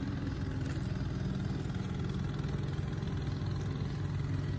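Lawn mower engine running steadily, with the uneven note of an exhaust leak.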